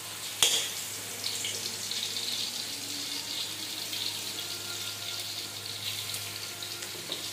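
Minced garlic frying in hot cooking oil in a wok, a steady sizzling hiss, with one sharp knock about half a second in.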